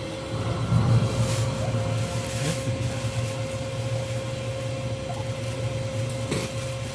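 Automatic hot dog making machine running: a steady low motor hum with a constant whine, and a few light clicks.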